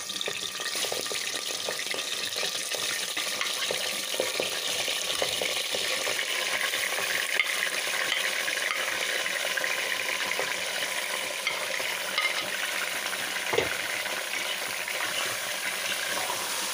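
Raw beef pieces sizzling as they are dropped into hot oil in a pressure cooker, the sizzle growing as more meat goes in, with a knock or two of meat or utensil against the pot.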